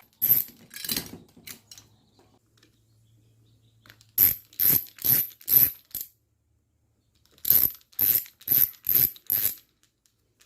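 Hand screwdriver backing out the mounting bolts of an RV entry door lock: short, sharp clicking strokes, a few at the start, then two runs of five about half a second apart.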